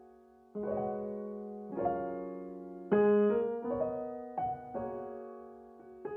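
Background piano music: slow, gentle chords struck roughly once a second, each left to ring and fade.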